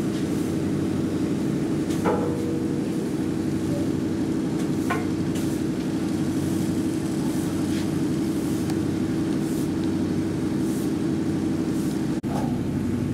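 Riverboat's diesel engine droning steadily under way, with a couple of faint clicks and a brief dropout near the end.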